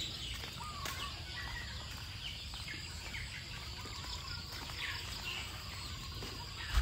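Chickens clucking and calling faintly, a scatter of short calls over steady background noise, with a dull bump at the very end.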